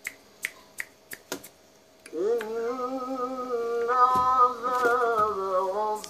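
A few sharp clicks, then about two seconds in a singing voice starts and holds one long wavering note.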